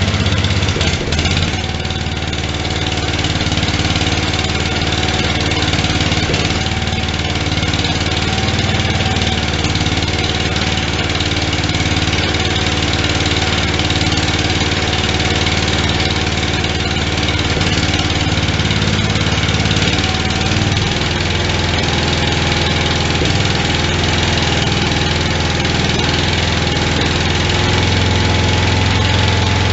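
Farm King MTD 990 garden tractor's 16 hp cast-iron Briggs & Stratton single-cylinder engine idling steadily, warming up after a cold start. Its speed rises slightly about two-thirds of the way in, and it runs a little louder near the end.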